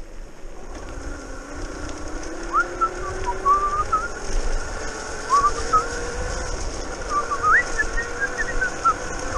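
Brushless outrunner motor of a modified Razor E300 electric scooter whining as it picks up speed, the whine rising in pitch for a few seconds and then holding steady, over low tyre rumble. Short, wavering whistle-like notes come and go over it from about two and a half seconds in.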